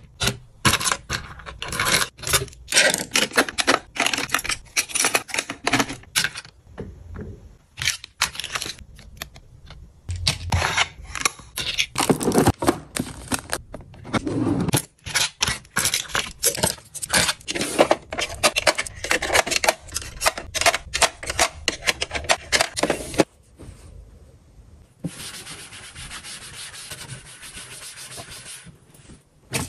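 Glass skincare bottles and plastic makeup packages handled and set into an acrylic organiser and a drawer: many close clicks, taps and rustles. Near the end, a steady rubbing hiss of a cloth wiping a tabletop.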